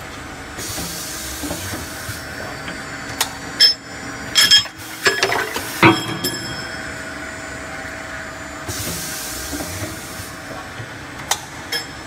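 Automatic double-end pipe chamfering machine running: a steady machine hum, two long hisses about half a second and nine seconds in, and a cluster of sharp metal clanks between about three and six seconds in, with another just before the end.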